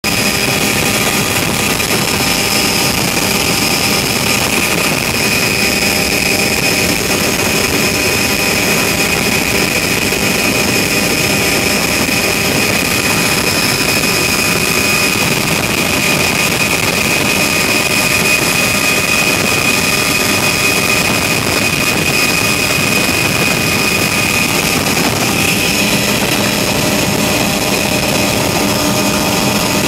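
Propeller aircraft's engine and propeller running steadily in flight, heard from inside the cabin as a loud, unbroken drone with a constant high whine.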